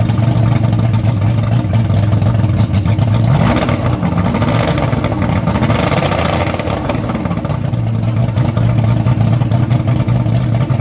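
Evinrude two-stroke V8 outboard engine running on a test stand, out of the water. It runs steadily at low speed, is revved up about three and a half seconds in, and falls back by about seven seconds.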